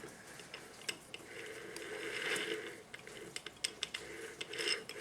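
Steel parts of a 4L60E transmission's planetary gearset handled and turned by hand: scattered metal clicks with a stretch of whirring, ratcheting gear noise near the middle.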